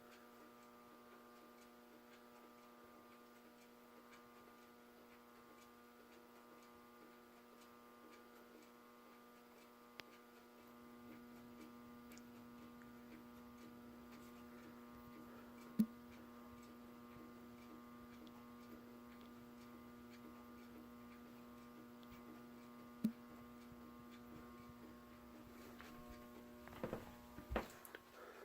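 A 1980s Casablanca Four Seasons ceiling fan running on the lowest setting of its variable speed control, just above stalling, gives a faint steady electrical hum made of several even tones. The hum grows a little louder about ten seconds in, and two short sharp ticks come later. The owner says the fan's new motor bearings are still stiff.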